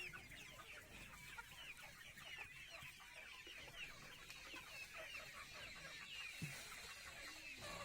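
Many chicks peeping together: a continuous, overlapping chorus of short, high, falling cheeps.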